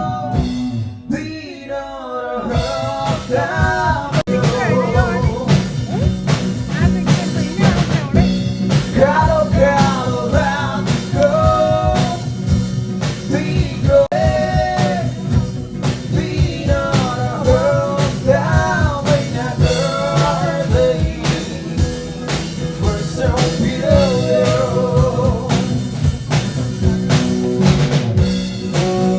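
A live band playing while a singer sings a Nepali song, with drums keeping a steady beat and a brief lull about a second in.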